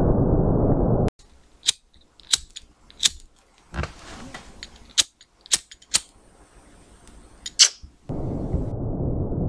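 Slowed-down audio of an M44 Mosin-Nagant rifle shot: a deep, muffled, even roar that cuts off abruptly about a second in and returns just as abruptly near the end. In between, a quiet stretch with about eight or nine sharp, irregular clicks.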